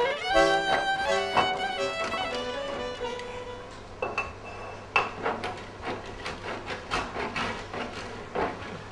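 Violin music fading out over the first few seconds, followed by irregular knocks and clatter of kitchen work at a counter.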